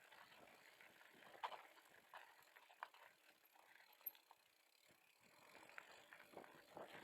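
Near silence with faint, irregular clicks and scuffs scattered through it.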